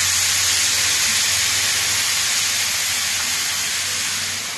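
Hot-oil tarka of fried onion and spices poured into a pot of kadhi, sizzling loudly as the hot oil hits the liquid. A steady hiss that eases off slightly near the end.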